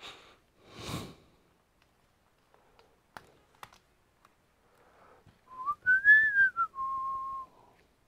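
A person whistling a short phrase about five and a half seconds in: a quick rising and falling note, then a held lower note. Before it, a brief rustle of handling and a couple of light clicks.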